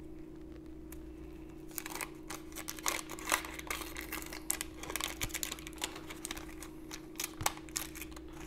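Wax-paper wrapper of a 1990 Donruss baseball card pack being peeled and unfolded by hand, crinkling and crackling irregularly from about two seconds in. A steady low hum runs underneath.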